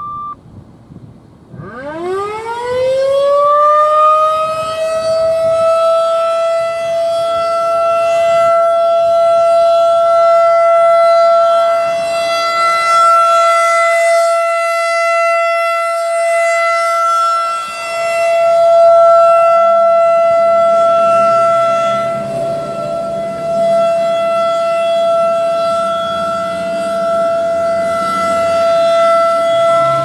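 Federal Signal 2001-SRN rotating electromechanical siren winding up about two seconds in, then holding one steady alert tone with strong overtones. A truck rumbles past in the last third. A brief radio paging tone cuts off at the very start.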